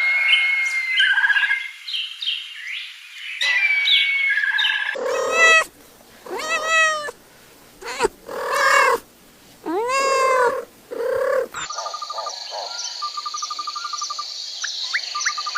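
A cat meowing: about six separate meows, each a short rising-then-falling call, in the middle of the stretch. Before them come quick high chirps, and after them a steady high trilling with pulsed trills.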